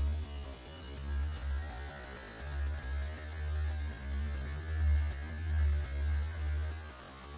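A deep, low hum that swells and fades unevenly, dropping away shortly before the end.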